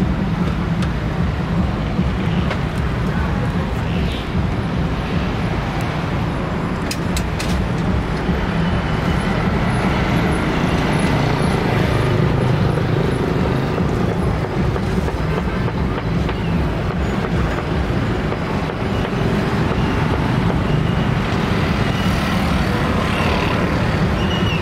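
Steady street ambience of road traffic, with a constant low rumble underneath.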